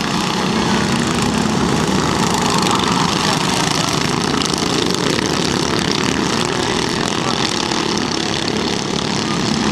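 A pack of 13 hp kart engines running together as the karts race around the track, a steady blended drone of many engines at once.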